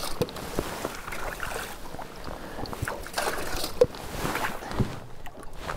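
Lake water splashing and trickling around a landing net held at the side of a boat, with a large rainbow trout in the net. A few small knocks and clicks.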